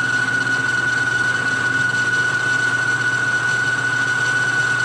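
Grizzly G0776 lathe running with the power feed engaged, boring out a worn cast iron pulley: a steady high whine over a low hum.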